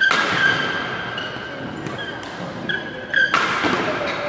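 Badminton rally: rackets strike the shuttlecock in sharp cracks, loudest right at the start and about three seconds in, with brief shoe squeaks on the court between hits. The cracks echo in the large hall.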